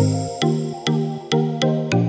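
Background electronic music with a steady beat of a little over two beats a second: a sharp percussive click and a low bass note on each beat.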